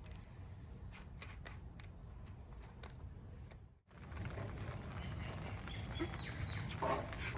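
Scattered sharp clicks and snips from cutting pieces off a gate lock. About four seconds in, the sound breaks off and gives way to a louder steady background rumble.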